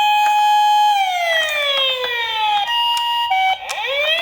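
A toy ambulance's electronic siren wailing: the pitch holds high, slides down over about two seconds, steadies briefly, then starts climbing again near the end. A few light ticks sound over it.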